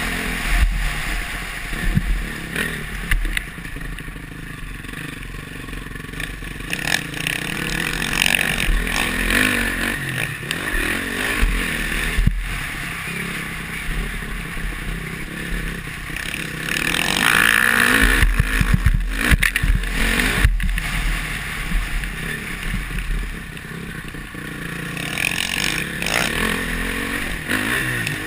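Honda CRF450R's four-stroke single-cylinder motocross engine running hard under the rider, its revs rising and falling through the track's straights and turns, loudest about two-thirds of the way through. Wind rumbles on the helmet-mounted camera's microphone.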